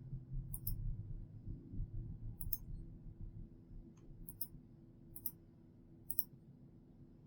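Computer pointer buttons clicking, about six short, sharp clicks a second or so apart, two of them in a quick pair. Under them is a faint low rumble, strongest in the first half.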